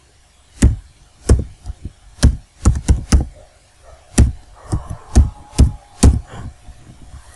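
Keys being typed on a laptop keyboard, heard as loud, sharp knocks: about fifteen keystrokes in irregular quick runs with short pauses, stopping about six seconds in.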